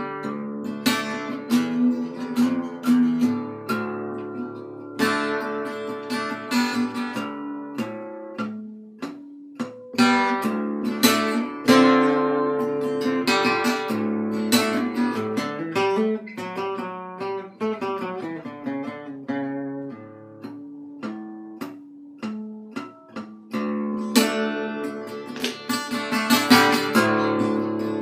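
Epiphone EL-00 parlor acoustic guitar played with a flat pick in an alternate tuning: a run of picked notes and strums, each ringing on.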